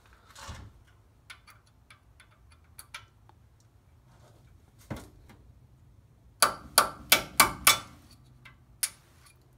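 Hammer striking a 1/8-inch punch held against the factory rivet that fixes a front brake rotor to its hub, knocking off the rivet head. A few light clicks and a knock come first, then about six and a half seconds in a quick run of five sharp metal strikes, about three a second, and one more strike about a second later.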